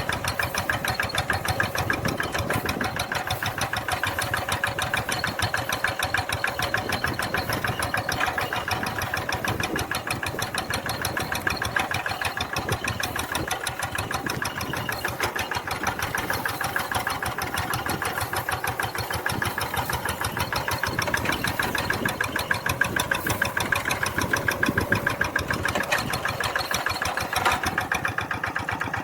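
Tractor engine running steadily with a fast, even beat.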